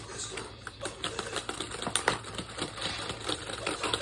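Rapid, irregular plastic clicking and clacking of a Rock 'Em Sock 'Em Robots toy as two players mash the punch buttons on its handles.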